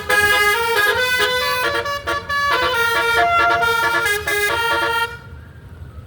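Indonesian tour bus 'telolet' Basuri multi-trumpet horn playing a quick tune of short stepped notes, several sounding together, stopping about five seconds in.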